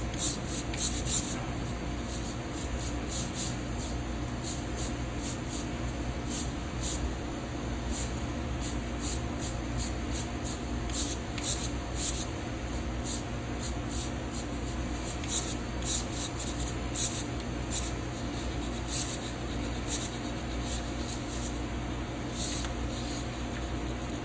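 Servo motors of an animatronic collie puppet whirring in short, irregular spurts as its head and jaw move, over a steady low hum.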